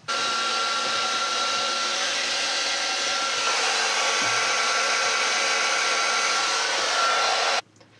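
Heat gun switched on and running steadily, blowing hot air with a faint whine into the end of a plastic sanitation hose to soften it for fitting, then switched off abruptly about seven and a half seconds in.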